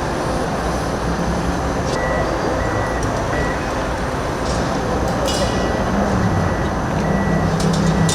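Construction site ambience: heavy machinery running steadily with an engine hum that grows louder in the second half, a short repeated beep like a reversing alarm, and a few sharp knocks.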